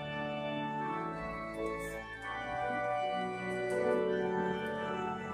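Organ playing slow, held chords that change every second or so.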